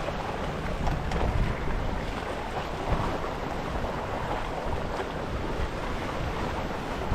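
Steady wind buffeting the microphone, a rushing noise heaviest in the low end, with a few faint clicks.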